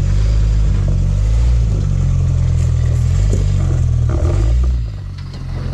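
Small lifted 4x4's engine revving up and down under load as it crawls up a steep granite rock slab, with a few short scraping knocks partway through. The engine note drops back about five seconds in.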